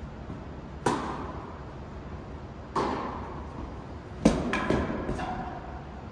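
Tennis ball struck back and forth by rackets in an echoing indoor court, a hit about a second in and another near three seconds. About four seconds in comes the loudest knock, followed quickly by several smaller bounces with a short ringing tone.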